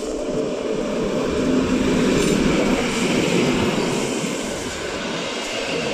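ČD class 754 diesel-electric locomotive passing close by at the head of a passenger train. Its engine sound swells to a peak about two to three seconds in as it goes past, then eases a little as the coaches roll by behind it.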